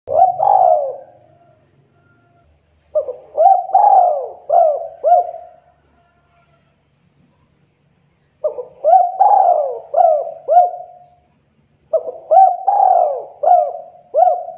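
Spotted dove cooing: four phrases of several short coo notes each, the phrases a few seconds apart with a longer pause in the middle.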